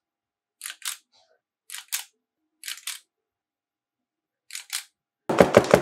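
Metal ice cream scoop's spring-loaded release lever clicking in pairs, squeezed and let go, four times about a second apart, as it scoops soap batter. Near the end a much louder, fast run of pulses cuts in.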